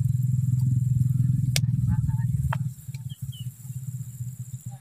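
A loud, low, steady drone with a fine rapid pulse, which cuts off abruptly a little over halfway through. A single sharp click comes about a second and a half in.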